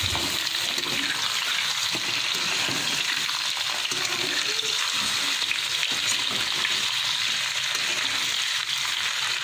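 Chopped raw mango pieces sizzling steadily in hot oil in a kadhai, with the tempered spices, while they are stirred.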